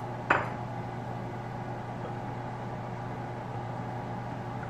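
A single sharp knock of a utensil on the ceramic cooking dish near the start, then a steady low kitchen hum with a few steady tones while the soup is stirred with a wooden spoon.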